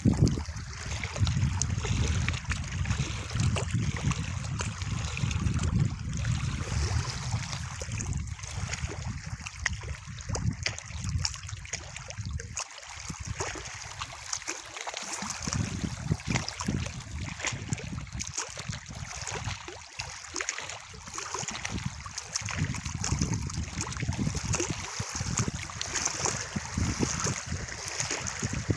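Shallow reservoir water lapping and trickling, over a steady low rumble.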